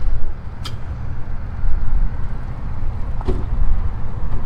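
Wind buffeting the microphone outdoors: a loud, uneven low rumble, with two light clicks about a second in and again near the end.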